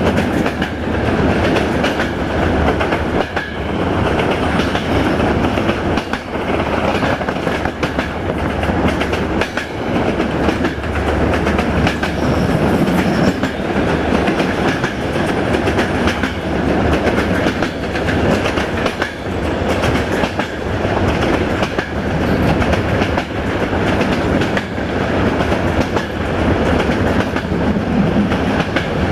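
Wheels of a moving passenger train clattering over the rails, with a steady rumbling rush of running noise and irregular clicks from the track. This is heard from an open carriage window.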